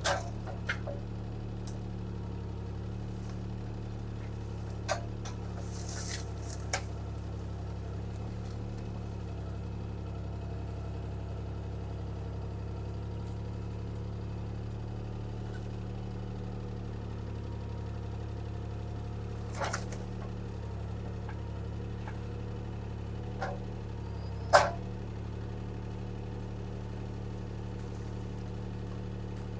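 Bobcat T300 skid steer's diesel engine running at a steady speed, with a few short sharp knocks, the loudest one late on.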